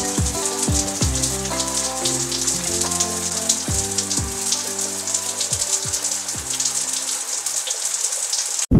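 Shower head running, its water spray a steady crackling hiss, under background music of sustained notes and deep drum hits; everything cuts off abruptly near the end.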